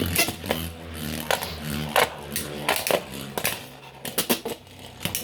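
3D-printed Beyblade spinning tops battling: sharp, irregular clacks of the tops colliding over a steady whirring hum of their spin.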